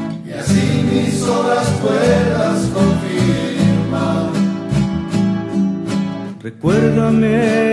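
Rondalla music: an ensemble of acoustic guitars plucking and strumming a steady rhythmic accompaniment to a Christian song. About six and a half seconds in the music dips briefly, then comes back in with sustained, wavering melody notes.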